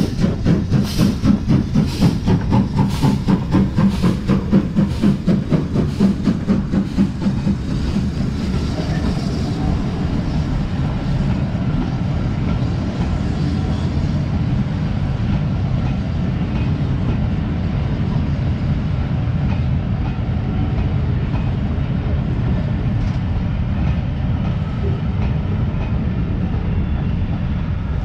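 BR Standard Class 4MT steam locomotive 76079 pulling away, its exhaust chuffing in a regular beat of about two a second. After about seven seconds the beats fade into a steady low rumble of the coaches rolling past.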